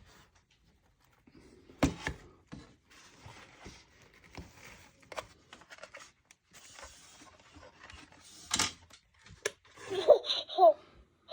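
Battery-powered electronic toy being switched on: plastic clicks and handling rustle, then short warbling electronic sounds from the toy near the end.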